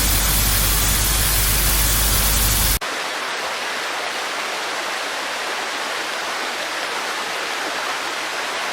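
Rushing floodwater: a loud, steady rush with heavy bass that cuts off abruptly about three seconds in, replaced by a slightly quieter, hissier steady rush of water.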